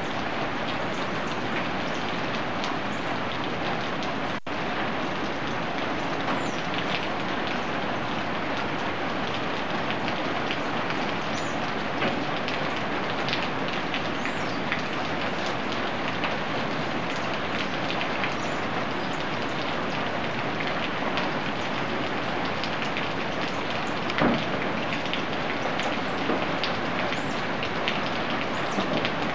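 Steady rain falling on the forest canopy: a dense, even hiss with scattered sharper drop ticks.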